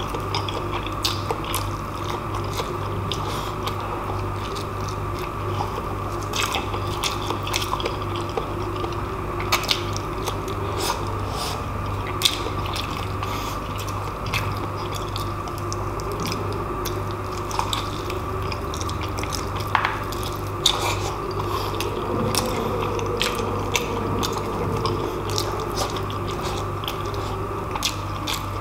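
Close-miked chewing of braised pork hock and rice, with frequent small wet clicks from the mouth. Under it runs a steady background noise that is put down to strong wind outside.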